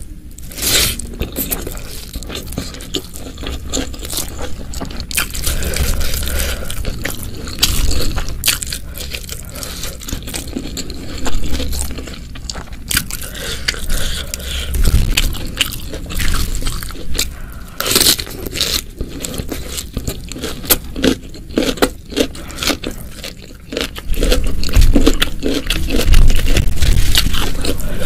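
Close-miked ASMR eating of a spicy Indonesian meal of stir-fried sliced beef, fried chicken and raw stink beans: irregular bites, crunching and wet chewing with scraping sounds, growing louder and heavier near the end.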